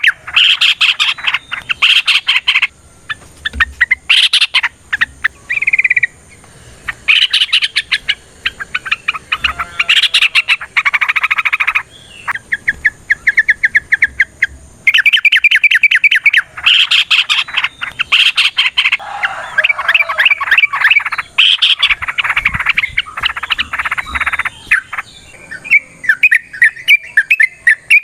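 Yellow-vented bulbul (trucukan) singing in rapid bursts of quick chattering notes, each burst a second or two long with short gaps between. It is the long, fast, combative song that keepers use to provoke other bulbuls into answering.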